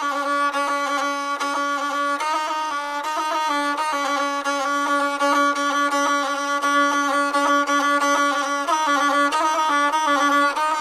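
Gusle, the single-string bowed folk instrument, playing a solo instrumental introduction: one bowed melodic line in short phrases, its notes moving in small steps around a low note.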